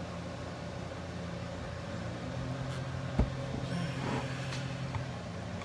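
Steady low hum with a single sharp tap a little over three seconds in.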